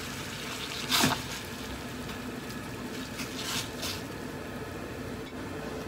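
Pot of water at a boil bubbling steadily, with splashes as raw pig's trotters are dropped in: the loudest about a second in, smaller ones at about two seconds and between three and four seconds.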